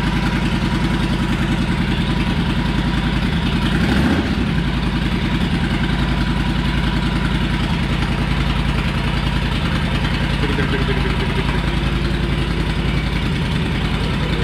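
Yamaha XVS1100 Drag Star's air-cooled V-twin engine idling with an even, loping pulse, swelling briefly about four seconds in.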